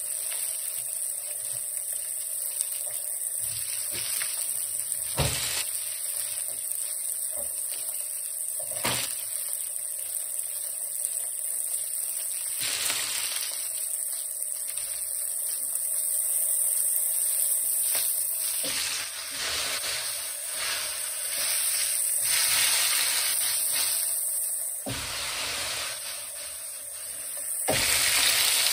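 Breaded Black Sea gobies frying in oil in a cast-iron skillet: a steady sizzle with occasional sharp pops and spatters, growing louder for stretches in the middle and near the end.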